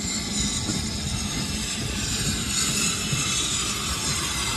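BR Standard Class 9F 2-10-0 steam locomotive running through a station with its train: a steady rumble of wheels on track and a hiss of steam that grows louder toward the end.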